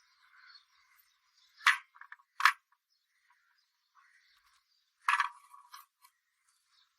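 Three sharp knocks: two close together about two seconds in, and a third about five seconds in with a short rattle after it. Faint chirping sits in the background.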